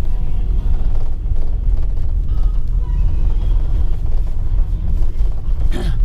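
BMW car driving slowly, a steady low road and engine rumble heard from inside the cabin, with a brief higher-pitched sound shortly before the end.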